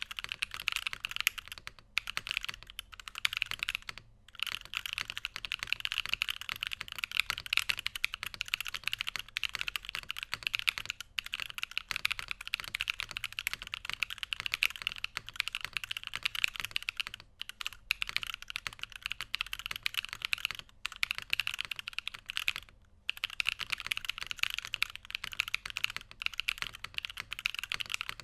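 Continuous fast typing on a GrayStudio Space65 Cybervoyager mechanical keyboard with stock Feker Holy Panda tactile switches, a top-mounted carbon fibre plate and PBT keycaps: a dense run of keystroke clacks, broken by a few brief pauses.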